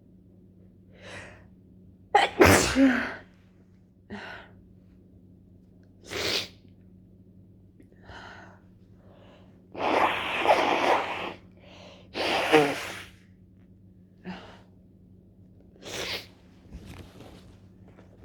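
A woman with a head cold sneezing over and over, wet, snotty sneezes from the last stage of the cold. There are about ten bursts, some soft and some loud; the loudest come about two seconds in and again between ten and thirteen seconds in.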